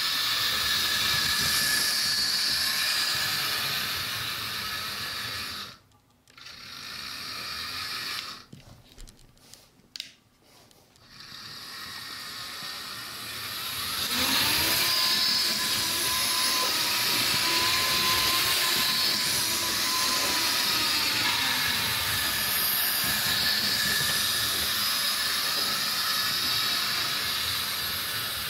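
Model Power HO-scale electric model train running on its track: a steady mechanical whirring of the small motor and wheels on the rails. It cuts out briefly twice in the first half, then returns with a whining tone that rises, holds for several seconds and falls away.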